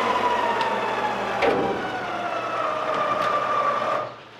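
Electric hoist motor running under load as it winches up a rusty steel pickup bed side that is still attached. Its whine sags in pitch and then climbs back, with a sharp metal crack about a second and a half in. The motor stops near the end.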